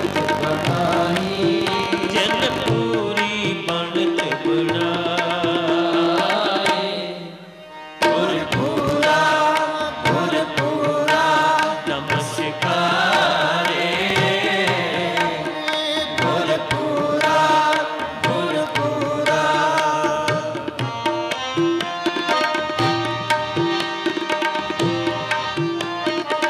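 Sikh Gurbani kirtan: voices singing a hymn together with harmoniums, over tabla strokes. The music fades away briefly about seven seconds in and comes back abruptly a moment later.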